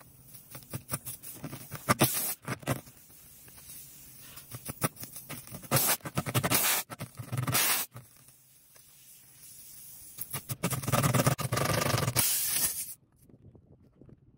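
Irregular scratching and scraping as a tire-plug insertion tool and a rubber plug string are worked into a puncture in a car tire's tread, with several louder rubbing stretches. The sound stops abruptly near the end.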